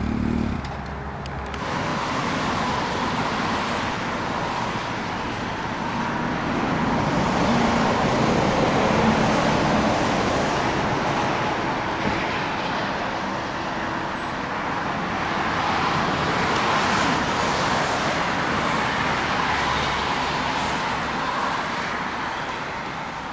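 Road traffic noise from cars and trucks passing on a motorway: a steady rushing hiss that slowly swells and fades as vehicles go by.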